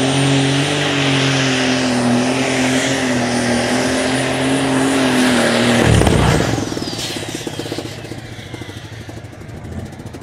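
Super Stock pulling tractor's methanol-fuelled, turbocharged engine running flat out under load with a high turbo whine. About six seconds in the engine cuts out with a brief jolt, and the whine falls away as the turbo spins down.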